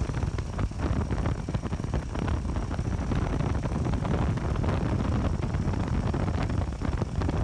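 Wind buffeting the microphone of a car moving at highway speed, over road rumble and the engine of the custom 1100cc single-cylinder turbo diesel motorcycle riding alongside.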